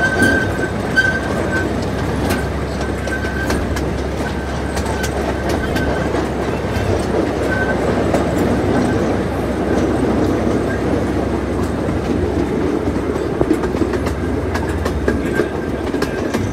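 A small park ride train running steadily: the drone of its motor and the rolling rumble, with clicking and rattling from the open passenger cars. A faint high whine comes and goes, and the low drone fades near the end.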